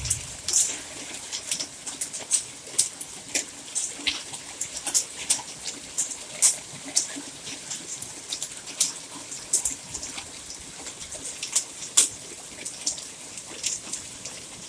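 Hailstones striking a canopy roof and a parked car: irregular sharp ticks, a few a second, over a light hiss of rain.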